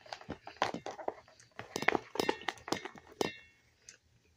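Fork clicking, tapping and scraping against a plastic takeout container, a quick run of sharp clicks and clinks that stops about three seconds in.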